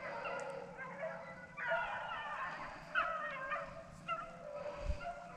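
Several rabbit-hunting hounds baying and yipping over one another, the sound of a pack running on a rabbit's trail. A brief low thump comes near the end.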